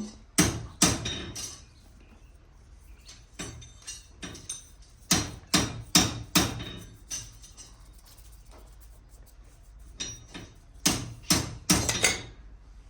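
A farrier's hammer striking metal in short runs of sharp taps, with pauses between the runs.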